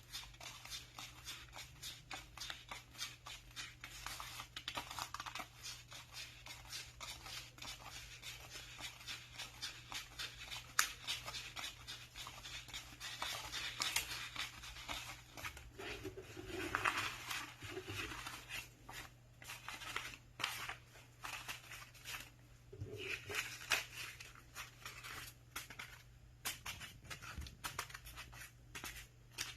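Paper banknotes being counted by hand: a fast, continuous run of crisp flicks and riffles as the notes are thumbed through, turning more uneven near the end. A faint, steady low hum runs underneath.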